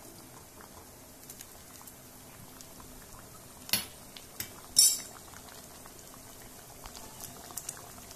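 Thick sambar bubbling at a boil in a metal pan, a faint steady simmer with small popping bubbles; it has thickened and is nearly done. A little under four seconds in and again about a second later, a metal ladle clinks against the pan.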